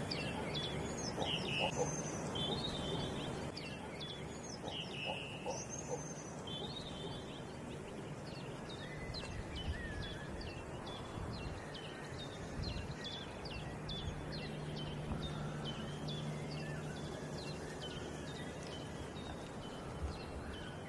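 Small birds calling over steady outdoor background noise. At first there are varied, curving calls, then a regular run of short high chirps at about two a second.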